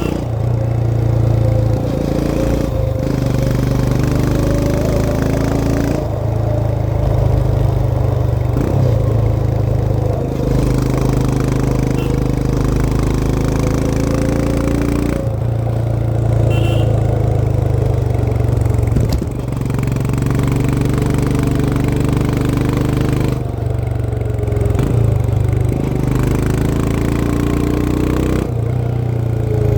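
Royal Enfield Himalayan 411's single-cylinder engine and exhaust heard onboard while riding, the engine note rising and falling over and over with the throttle, broken briefly several times as the revs drop, over a steady rush of wind.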